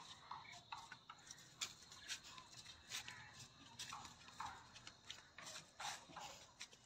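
Faint, irregular footsteps on dry earth and leaves, heard as scattered soft clicks and crunches.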